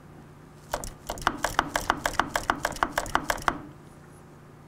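Quick run of light clicks in pairs, about four pairs a second for a little under three seconds: the front brake lever of a 2005 Suzuki GSX-R750 pumped fast during bleeding, with no pressure building, which the mechanic takes for a dead master cylinder.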